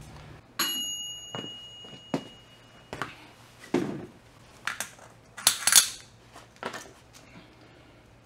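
Steel transmission gears and parts being handled on the main shaft, clinking and knocking together. A sharp metal clink about half a second in rings on for about two seconds, followed by a handful of separate knocks and clinks.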